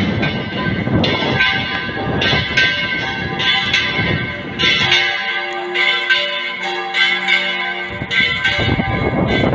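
Church bells ringing: repeated strikes with their tones ringing on and overlapping.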